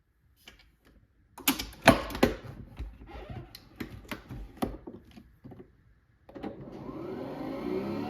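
A Nespresso Vertuo coffee machine being handled, with a run of sharp clicks and knocks. About six seconds in, its motor starts up with a whir that rises in pitch and grows louder as the machine begins brewing.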